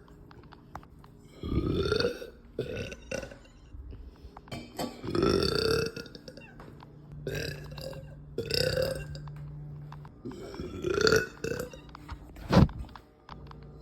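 A woman belching: a series of about five deep, loud burps with shorter, smaller ones between them, gassy and full after a meal. Near the end there is one very short, sharp sound.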